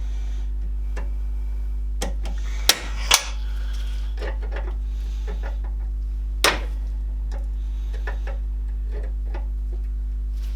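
Circlip pliers and a steel circlip clicking against a Classic Mini drive shaft as the clip is spread and worked over the shaft into its groove: two sharp metallic clicks close together about three seconds in and another about six and a half seconds in, over a steady low hum.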